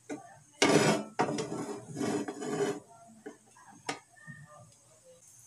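A nonstick frying pan scraping and rattling against the metal grate of a gas stove as it is shifted on the burner, for about two seconds. Near the end comes a single sharp click.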